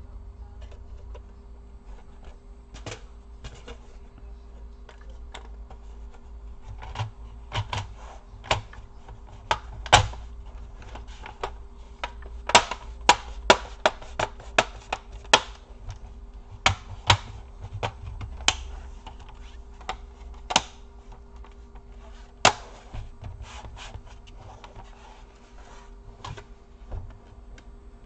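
Plastic snap clips of a Dell Vostro 15 3568 laptop's bottom case clicking into place as the cover is pressed down along its edges: a run of irregular sharp clicks, thickest in the middle, over a faint steady hum.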